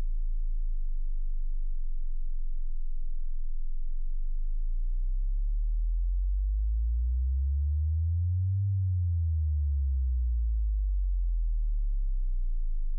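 A very low, pure sine tone. It holds steady at first, then glides slowly up in pitch to a peak just past the middle and slides back down to where it started.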